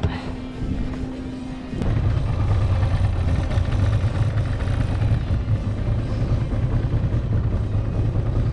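Boat engine running, growing suddenly louder about two seconds in as the boat speeds up and gets under way, then a steady low rumble.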